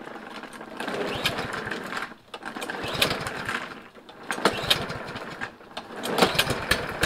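Riding lawn mower engine cranked over by its electric starter in about four bursts with short pauses, turning over fast without catching. The carburetor is still dry after being off the engine.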